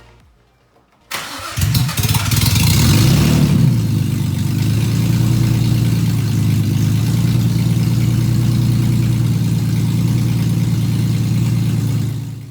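Nissan 350Z's turbocharged 3.5-litre V6 starting: it cranks about a second in, catches and revs briefly, then settles into a steady idle that fades out near the end.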